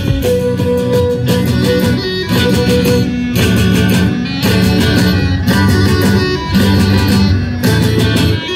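Live band playing an instrumental tune: fiddle over guitar, with a drum kit keeping a steady beat.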